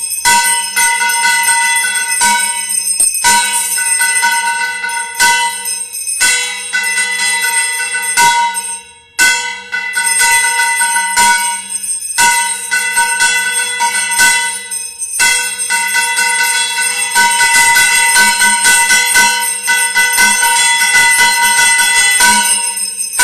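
Temple bells ringing rapidly and continuously for the aarti, clanging strokes over a steady ringing tone, with a brief break about nine seconds in.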